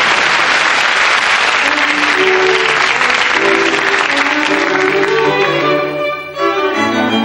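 Audience applause, fading out over the first five seconds, as orchestral theme music with violins and cello comes in about two seconds in and carries on in sustained string chords.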